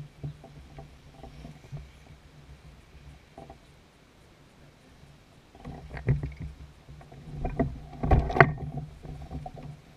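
Knocks and rattles of fishing gear against a plastic Hobie kayak while a bass is played and netted, with a low steady hum underneath. Louder clattering comes about six seconds in and again around eight seconds as the landing net is brought in.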